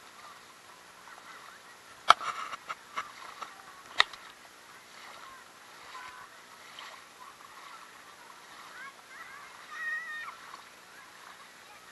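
Distant voices of people wading and playing in a shallow creek, with one longer call near the end. A few sharp knocks and clicks sound close by about two seconds in and again at four seconds.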